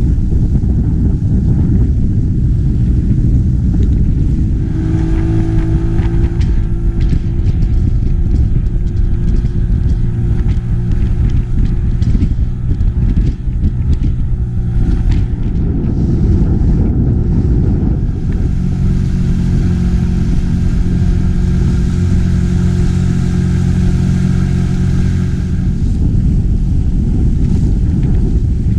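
Outboard motor of a small inflatable boat running at speed through choppy water, with heavy wind rumble on the microphone and water splashing against the hull. The engine note comes through most clearly in the second half.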